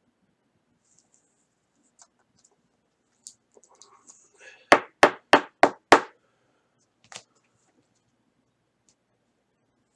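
Five quick, sharp knocks in a row, about three a second, on a hard surface, with faint ticks and rustling before them and a single tick after.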